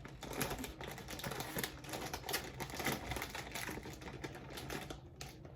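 A rapid, irregular run of light clicks and crackles.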